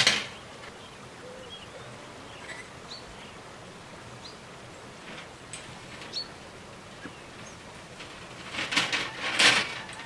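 Thin copper capillary tubing being handled and wound around a copper pipe: a sharp click at the start, a few light ticks, and a louder stretch of scraping and rattling near the end.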